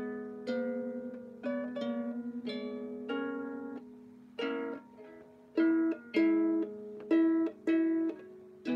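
Out-of-tune harp being plucked, single notes and pairs ringing and fading over low strings still sounding underneath; in the second half comes a run of louder plucks about half a second apart.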